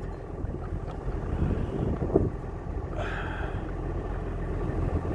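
Tractor engine idling steadily, with wind buffeting the microphone and a single knock about two seconds in.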